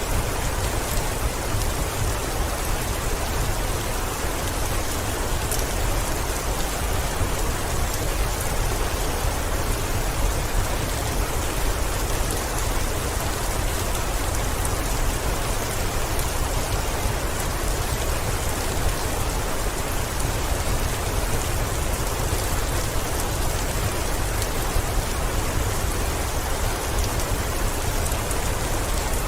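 Heavy rain falling steadily, an even hiss of countless drops with a deep low rumble beneath it.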